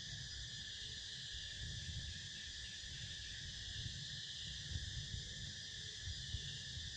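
Steady forest insect chorus, a continuous high-pitched buzzing that never breaks, over a low uneven rumble.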